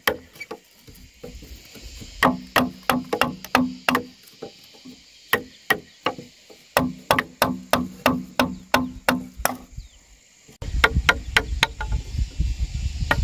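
Repeated sharp strikes of a tool into a wooden pole, chopping or hammering out a joint for a house-frame column. The strikes come in runs of about three to four a second, each with a short low ring, with pauses between the runs. Near the end a steady low rumble comes in under further strikes.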